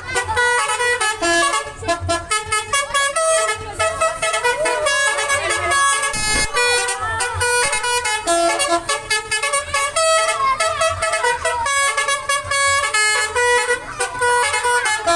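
Basuri telolet horn on a Dewi Sri bus playing a tune: a fast run of short notes, several tones sounding at once and changing pitch continually.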